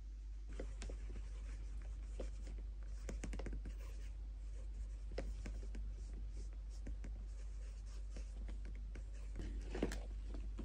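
Cloth rubbing shoe wax into the leather toe of a boot: faint, irregular short strokes of rubbing.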